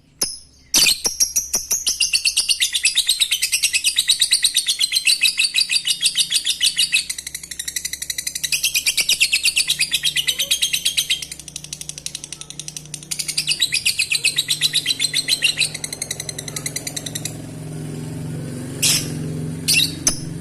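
Lovebird ngekek: a long, rapid chattering trill of high notes, starting about a second in and running in long bursts with two short breaks before stopping a few seconds before the end. A low steady hum comes in during the second half.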